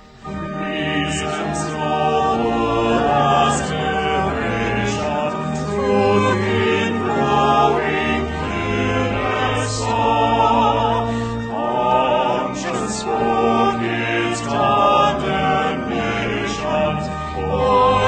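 A small choir singing a slow choral piece with vibrato over sustained low accompanying notes. The singing enters right at the start after a brief hush.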